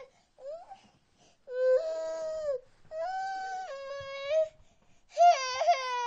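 Baby crying: a short cry, then three long wailing cries with brief breaths between them. The last cry wavers and falls in pitch.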